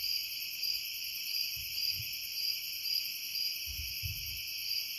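A steady chorus of night insects with a pulsing trill. Under it, two pairs of dull, low, distant thuds, the first a little after a second and a half in and the second near four seconds in: the unexplained banging heard in the hills.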